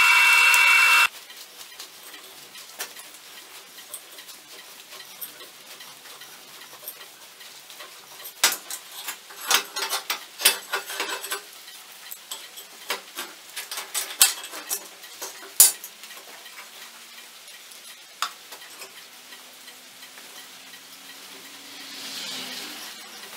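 A drill press runs and stops suddenly about a second in, after drilling through a steel plate. Then come scattered metallic clinks and knocks as the steel plate and hand tools are handled on a metal bench.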